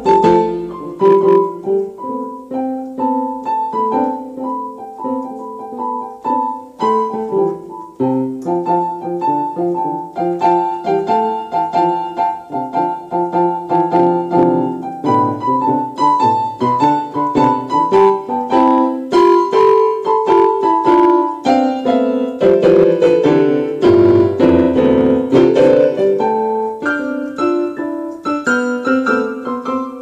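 Piano music: a brisk melody of quick, closely spaced notes, several to the second.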